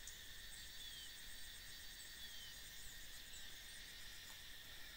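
Faint, steady high-pitched insect drone in several bands, with two brief falling chirps in the first half.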